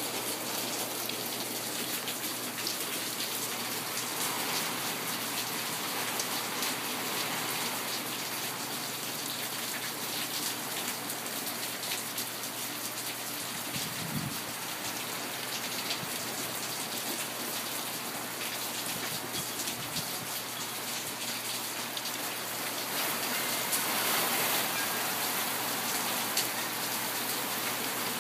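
Heavy rain falling steadily in a winter storm, a dense even patter that swells louder for a couple of seconds about three-quarters of the way through.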